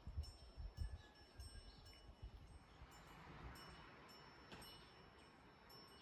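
Faint wind chime ringing now and then, a few high tinkling notes, with some low bumps in the first second.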